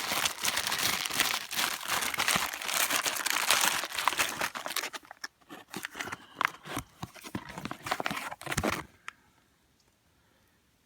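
Plastic food-ration packets crinkling and rustling as they are handled, dense for about five seconds, then a few scattered crackles before stopping near the end.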